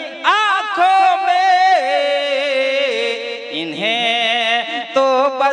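A man singing a naat (Urdu devotional poem) into a microphone, drawing the line out in long held notes that slide and waver in pitch.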